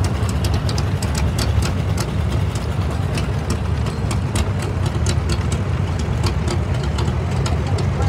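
Antique farm tractor engines running at low speed as the tractors move slowly past. A steady low rumble with irregular ticking on top.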